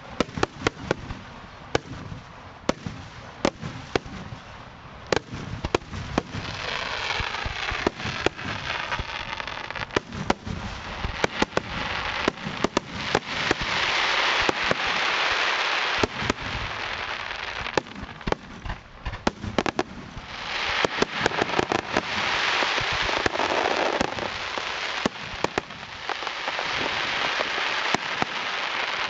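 Aerial fireworks shells bursting overhead: many sharp bangs in quick succession, with two long stretches of dense crackling, one from about six seconds in and one from about twenty seconds in.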